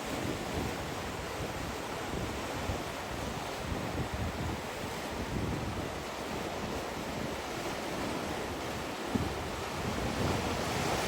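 Sea waves washing on the shore in a steady rush, with wind buffeting the microphone in low gusts; the surf grows a little louder near the end.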